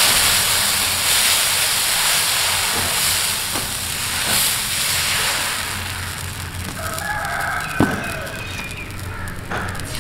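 Thin corn flour batter sizzling and hissing as it is poured onto a hot iron tawa, loudest at first and slowly dying down. A rooster crows once about seven seconds in, and there is a sharp tap near eight seconds.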